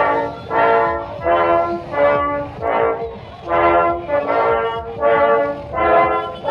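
Music: a brass instrument playing a slow melody of separate held notes, about one or two notes a second.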